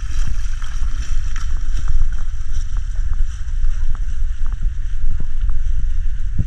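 Wind buffeting the microphone with a heavy rumble, over the steady hiss of sea wash, with scattered light knocks.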